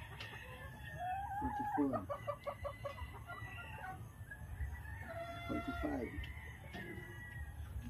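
Chickens calling: two drawn-out calls, one about a second in and one about five seconds in, over a low steady background rumble.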